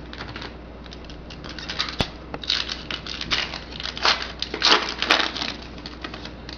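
Foil wrapper of a trading-card pack being torn open and crinkled, a fast run of crackles with a sharp click about two seconds in.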